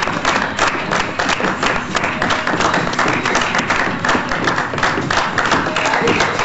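A small audience clapping continuously, a dense run of hand claps.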